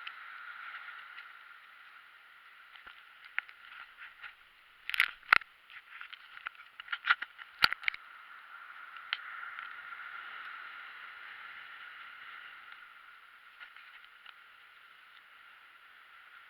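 Steady rush of seawater or surf, with a cluster of sharp clicks and knocks about five to eight seconds in.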